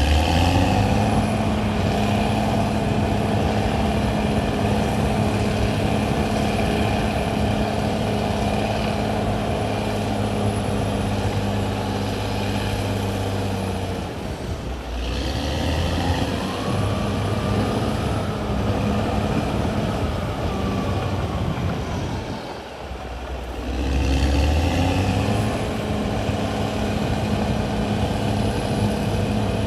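CAT D6R XL bulldozer's diesel engine running steadily, with a low hum. It drops off briefly twice, about halfway and about three quarters through, and between the dips a higher whine rises and falls.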